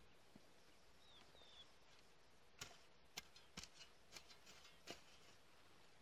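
A long-handled hoe chopping into dry grass and ground: an irregular run of about eight sharp knocks over a couple of seconds. Before it, a small bird chirps twice.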